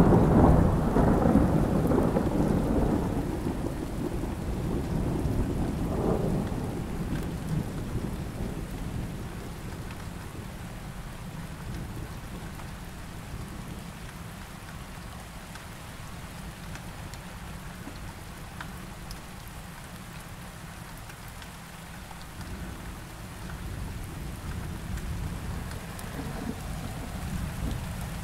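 A thunderstorm: a heavy rumble of thunder at the start that dies away over several seconds, with a smaller roll about six seconds in, over steady rain.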